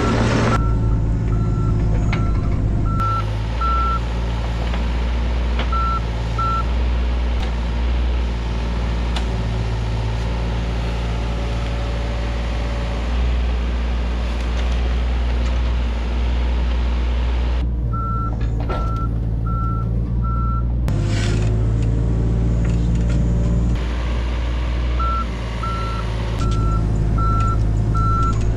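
Deere 27D mini excavator's diesel engine running steadily, with its motion alarm beeping about twice a second in several separate runs as the machine moves.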